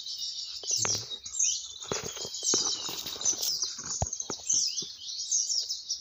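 A dense, continuous chorus of rapid, high-pitched chirps and twitters from small songbirds, with a few soft knocks and rustles near the middle.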